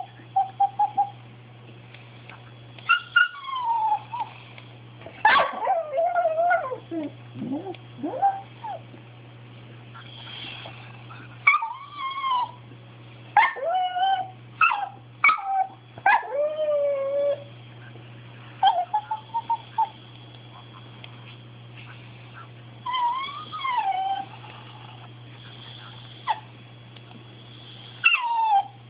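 Pembroke Welsh corgi whining and yipping in bursts, with long, wavering cries that slide up and down in pitch and pauses between them. It is a dog's demand whine, pestering to get something he wants.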